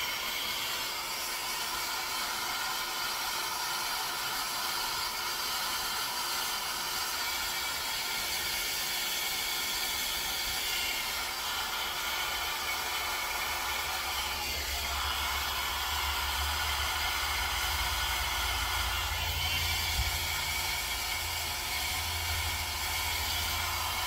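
Handheld hair dryer blowing steadily, shrinking heat-shrink tubing tight over spliced wires. A low rumble joins about halfway through.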